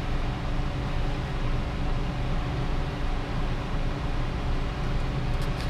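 Steady drone of a fan running, with a low hum, as from a range hood or air conditioner. A few faint ticks near the end.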